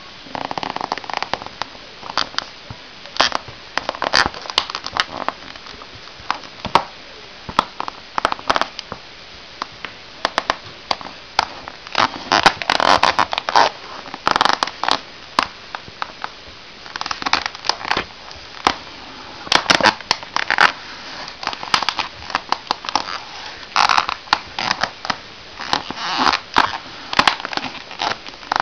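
Toy monster truck cracking and crackling as a shoe presses down and crushes it: irregular sharp snaps and creaks in uneven clusters, loudest around the middle.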